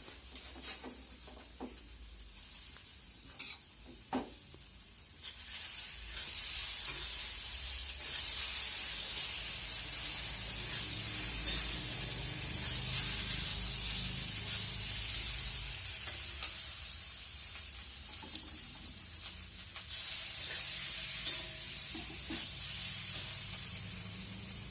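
Boiled potatoes frying in oil with spices, sizzling while a spatula stirs and knocks against the pan. The sizzle turns much louder about five seconds in.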